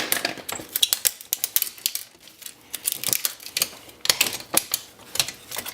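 Irregular clicks and rattles of plastic and metal parts of an Oki 9-pin dot-matrix printer being pried out and handled during disassembly.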